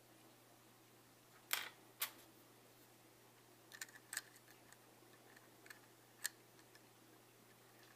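Small sharp clicks and taps of a precision screwdriver and plastic parts at the rear of a disassembled Canon EF 50mm f/1.8 II lens: two close together about a second and a half in, a few lighter ticks around four seconds, and one more a little after six seconds.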